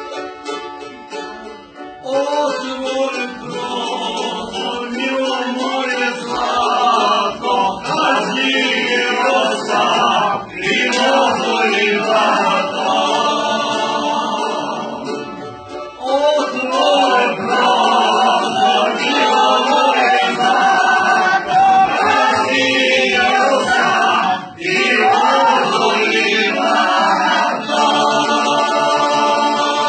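A group of voices singing a song together over string instrument accompaniment, the singing coming in strongly about two seconds in.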